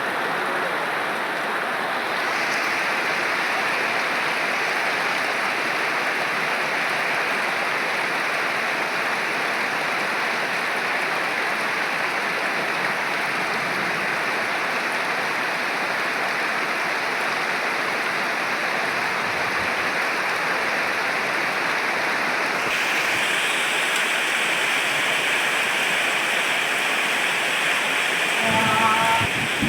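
Steady heavy rain, a dense even hiss whose tone changes abruptly twice. A brief louder sound comes near the end.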